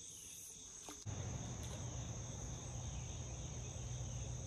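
A steady, high insect chorus buzzing without a break. A click about a second in, after which a low steady rumble sets in under it.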